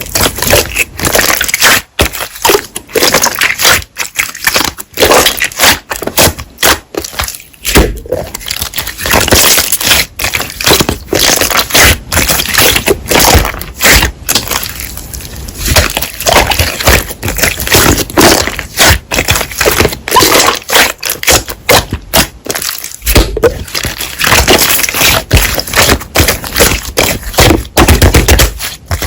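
Slime being pressed and squished by hand, giving a dense run of sharp crackles, pops and snaps.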